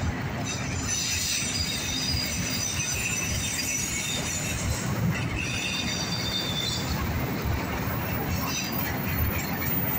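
Autorack freight cars rolling past with a steady low rumble, their wheels squealing in thin high tones through the first half and again near the end.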